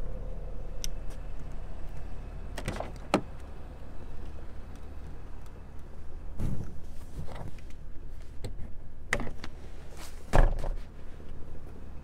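Handling noises from an Audi RS5 Sportback's rear door and fold-down rear seats: a handful of separate clicks and knocks, the loudest a thump about ten seconds in, over a steady low rumble.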